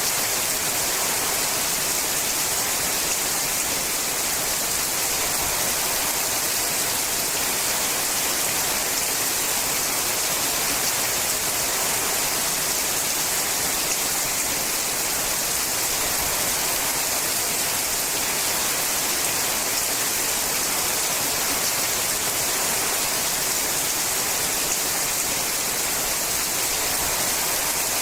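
Steady rain falling on a sheet-metal roof: a dense, even hiss with no separate drops or pauses standing out.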